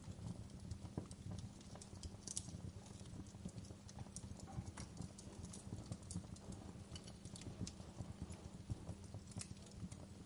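Wood fire burning in a fireplace, crackling with many irregular small pops and snaps over a low steady rumble of the flames.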